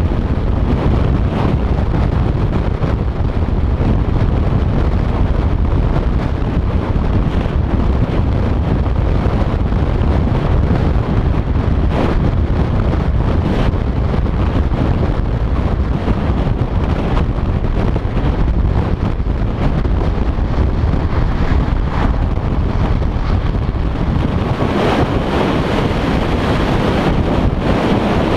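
Strong wind buffeting on the microphone of a camera on a vehicle moving at highway speed, over steady road and tyre noise, with a few faint knocks from the road. Near the end the noise turns hissier.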